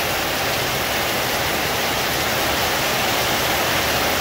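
Heavy rain pouring down in a steady, dense rush.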